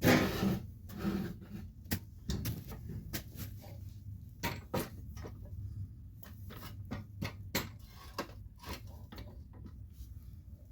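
Handling noise: a louder clunk at the start, then scattered light clicks and knocks of things being moved about, over a low steady hum.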